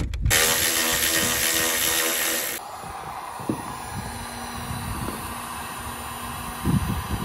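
A cordless Milwaukee M12 power tool whirs loudly for about two seconds and stops suddenly. A Drill Master electric heat gun then blows steadily at a lower level, with a few light knocks of handling.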